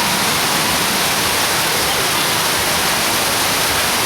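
Torrential tropical rain pouring down in a loud, steady hiss.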